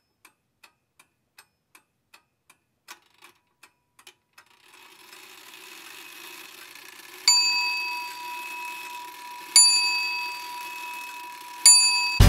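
A clock ticking about three times a second, then a low rushing noise swells in under three loud bell strikes about two seconds apart, each ringing on and fading.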